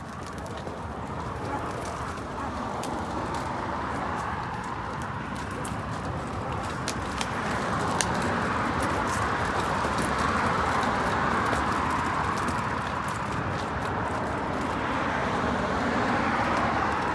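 Road traffic: the tyre and engine noise of a vehicle on the street, growing louder over several seconds and then holding, with scattered light clicks.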